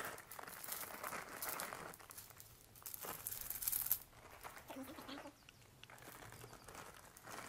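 Small plastic seasoning sachets crinkling and being torn open by hand, in irregular rustles, loudest between about three and four seconds in.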